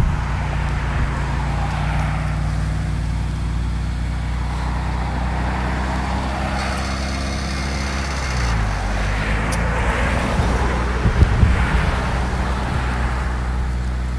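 1997 Honda CR-V four-cylinder engine idling steadily, running again after water was cleared from its cylinders and burning off residue. Its idle settles to a slightly lower speed about eight seconds in, with a few rattling knocks a few seconds later.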